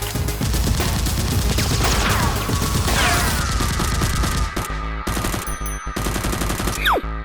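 Rapid gunfire in sustained volleys, like automatic weapons firing in a shootout, with falling whistle-like sweeps about two and three seconds in.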